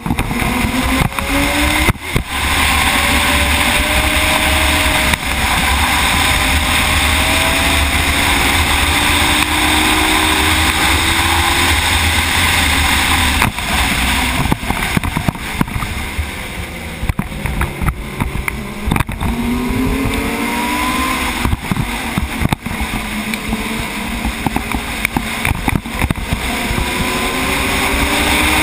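Race motorcycle engine at speed, its pitch climbing and dropping back several times with the throttle, with heavy wind buffeting the onboard microphone.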